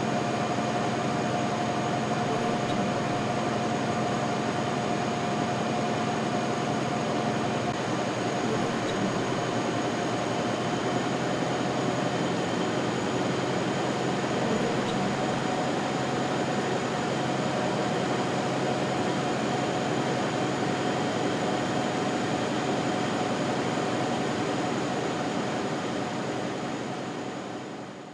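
Newspaper printing-house machinery running steadily: a dense mechanical clatter and rumble with a steady whine through it. It fades out near the end.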